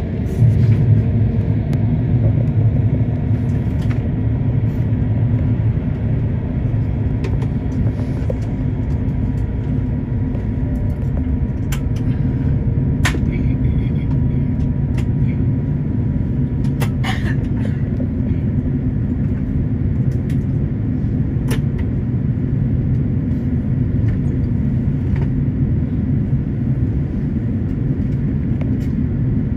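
Airliner cabin noise while taxiing: a steady low rumble from the jet engines at idle and the wheels rolling. A few short sharp clicks or rattles stand out over it.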